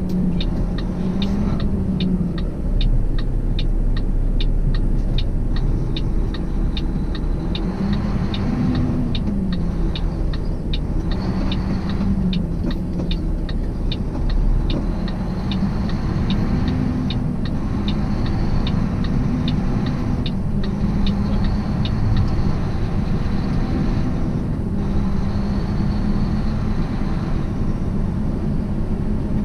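Semi truck's diesel engine and cab noise at low speed, the engine note rising and falling with the throttle. Over it comes a fast, regular ticking, typical of the turn signal, which stops about two-thirds of the way through.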